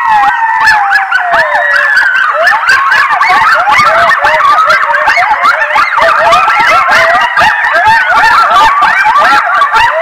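A pack of coyotes howling and yipping in a loud chorus: a long falling howl in the first couple of seconds, then many short rising-and-falling yips overlapping with held howls.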